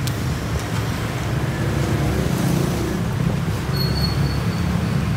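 Steady low rumble of road traffic passing on a busy city street. A short, thin, high-pitched squeal comes about four seconds in.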